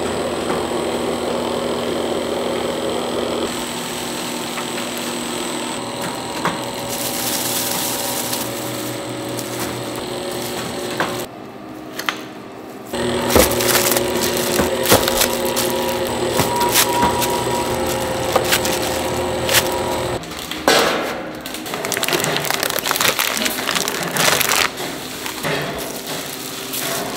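Electric food mixer running, its motor humming steadily as the paddle churns thick sweet red bean paste in a steel bowl, with knocks and clatter of dough-handling machinery throughout.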